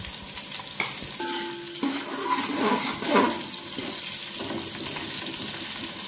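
Sliced onions and cumin seeds sizzling steadily in hot oil in a steel pot, with a metal spoon stirring them.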